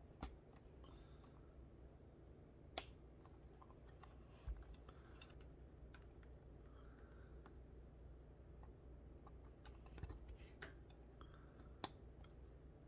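Qman plastic building bricks clicking as connector pins and beams are pressed together by hand: a handful of scattered sharp clicks, the loudest about three seconds in, over a faint steady hiss.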